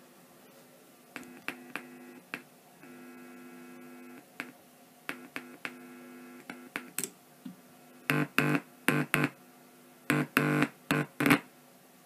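A Morse key being keyed into a four-track cassette recorder's microphone input: buzzing tones switched on and off in short and longer stretches, each starting and stopping with a click. The tones get louder and lower in pitch about eight seconds in.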